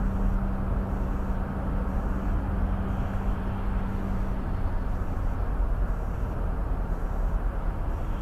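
Steady road noise of a car cruising at highway speed, about 58 mph, heard through a dash cam's microphone, with a low steady hum that fades out about three seconds in.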